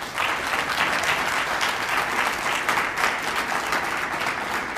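Audience applauding: many hands clapping steadily, beginning to die down near the end.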